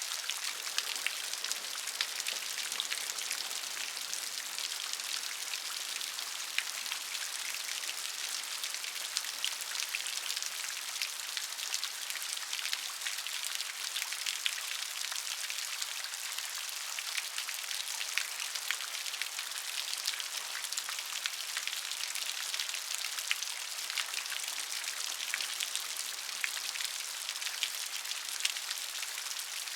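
Steady rain with many distinct drops pattering on a surface, an even hiss sprinkled with small sharp ticks.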